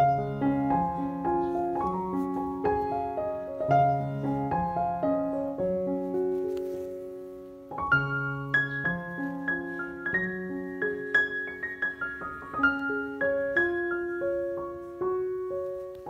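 Background solo piano music, single notes and chords at an easy pace, with a brief lull about eight seconds in before the playing picks up again.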